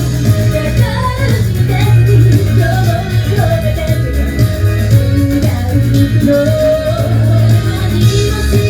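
Live J-pop idol group song: female voices singing over a loud backing track with a heavy bass beat, heard through the hall's sound system.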